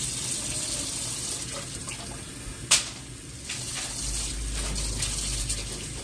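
Water running from a kitchen tap into a plastic mixing bottle, filling it to dilute the cleaner concentrate, with a single sharp click a little before the middle.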